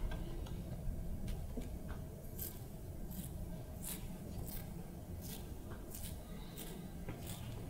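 Bristles of a brush scratching and dabbing on watercolor paper in short strokes, about a dozen, coming roughly twice a second after the first couple of seconds.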